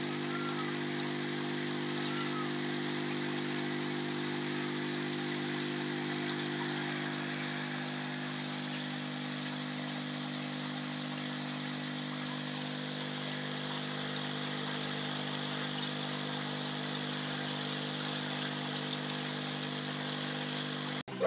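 Air pump running with a steady hum, driving bubbles up through K1 plastic media in a moving-bed biofilter barrel, so the water bubbles and splashes constantly.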